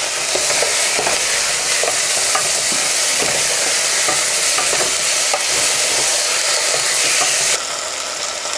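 Onion, ginger, garlic and freshly added tomato sizzling in hot oil in a pan while a spoon stirs them, with faint scraping ticks. The sizzle steps down abruptly a little before the end.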